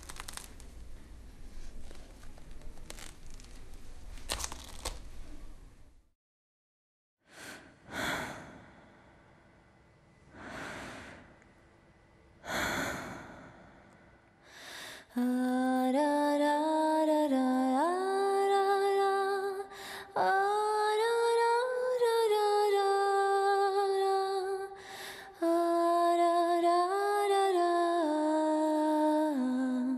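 Soft room tone with faint clicks, a second of silence, then a few breathy swells. About halfway through, a single voice begins humming a slow, wordless melody, holding long notes with brief pauses.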